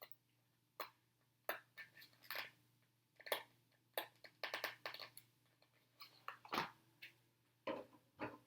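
Faint, scattered clicks and crinkles of a decal sheet and its backing being handled and peeled while vinyl trim stickers are fitted to an RC truck's plastic body.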